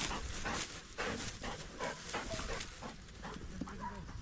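Hunting dog panting, rhythmic and fairly fast, about four breaths a second.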